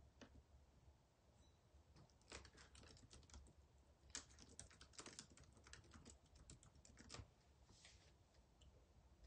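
Faint typing: a quick run of taps that starts about two seconds in and stops about seven seconds in.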